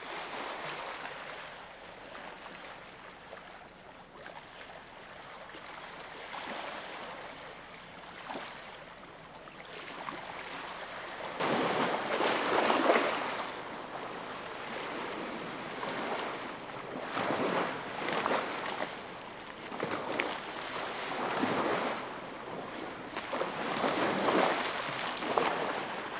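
Storm-surge waves of the Baltic Sea washing over and breaking against a flooded quay, with rushing and splashing water. The water comes in repeated surges, the loudest about halfway through.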